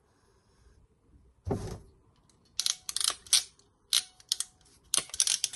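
A single knock about a second and a half in, then three quick runs of sharp clicks from ratchet crimping pliers squeezing a ring terminal onto a short wire.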